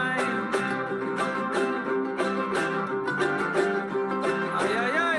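Instrumental passage of a song, with plucked string instruments strummed in a steady rhythm.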